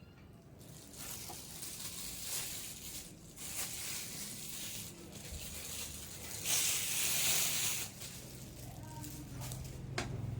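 Plastic packaging rustling and crinkling as it is handled, with a louder stretch of rustling lasting just over a second about six and a half seconds in.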